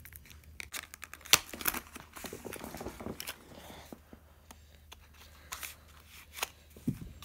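Scissors cutting and prying at the bottom of a small cardboard box, giving scattered sharp clicks with bits of cardboard scraping and tearing. The sharpest click comes about a second and a half in.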